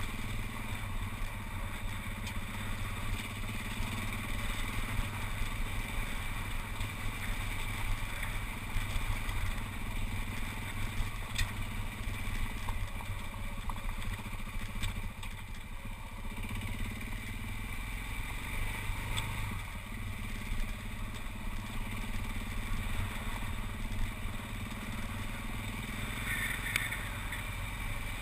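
Motorcycle engine running steadily while riding a gravel track, with loose stones crunching and clattering under the tyres and a few sharp clicks.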